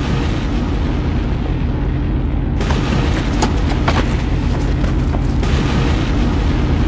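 Bass-heavy background music with a steady deep low end and a few sharp clicks about three to four seconds in.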